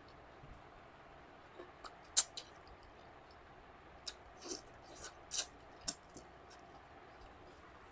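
A person eating: chewing with wet mouth clicks and smacks, one sharp smack about two seconds in and a cluster of them between four and six seconds.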